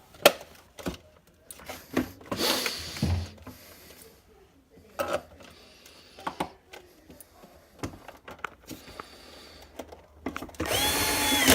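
Scattered plastic clicks and knocks as a refrigerator control panel is handled into place. Near the end a Milwaukee 12-volt cordless drill driver runs for about a second with a steady whine.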